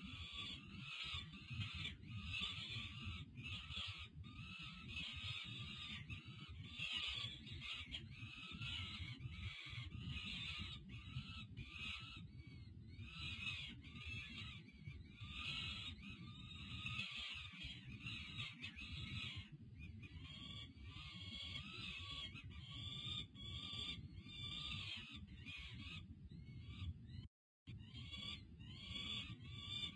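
Peregrine falcon nestlings begging for food while being fed: a near-continuous run of short, high, repeated calls, over a steady low rumble. The sound cuts out completely for a moment near the end.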